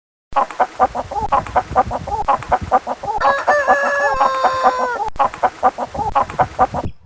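Chickens clucking in quick repeated short calls, with a rooster crowing once in the middle for about two seconds.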